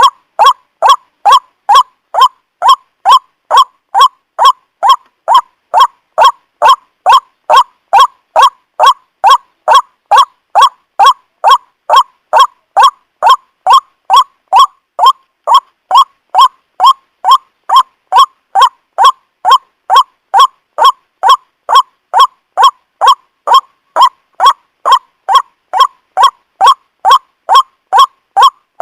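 White-breasted waterhen (ruak-ruak) giving its harsh, honking "kruak" call over and over at an even pace of about two calls a second, used as a lure call to draw the birds in.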